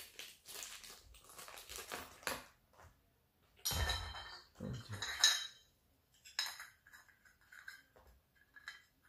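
Metal parts of a small RC car stand being handled on a tabletop: soft rustling, then two clattering metal knocks about a second apart near the middle, followed by lighter clicks and taps.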